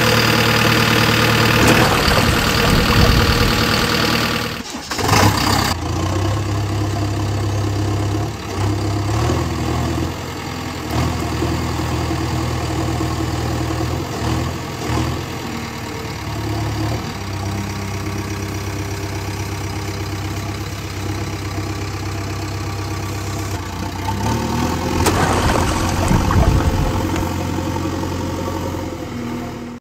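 Vehicle engine idling steadily, its pitch shifting up and down in small steps. The first four seconds or so are louder and noisier, ending in a short break.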